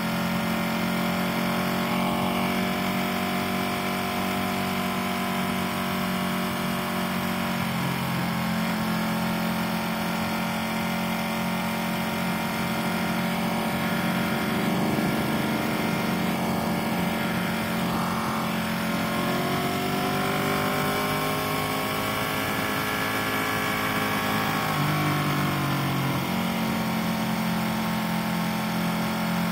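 Motorcycle engine running under way, with wind noise on a helmet-mounted microphone. The engine note drops, later climbs, and drops again as the speed changes.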